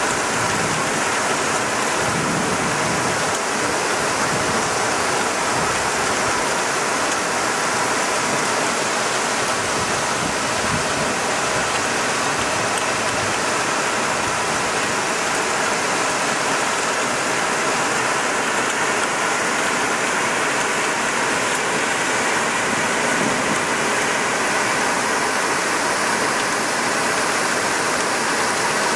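Heavy rain pouring down onto roofs and waterlogged pavement: a steady, dense hiss that does not let up.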